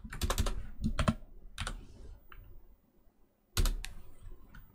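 Typing on a computer keyboard: a quick run of key clicks, a pause of about a second, then another short run of clicks.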